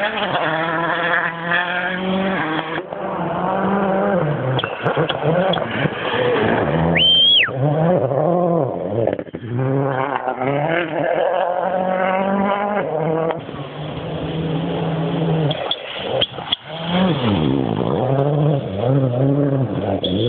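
Rally car engines revving hard on a gravel forest stage, the pitch rising and dropping repeatedly as the cars brake, turn and accelerate through the gears. A brief high whistle sounds about seven seconds in.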